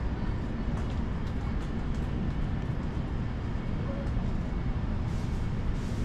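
Steady low rumbling ambience inside a large store, with faint scattered ticks over it.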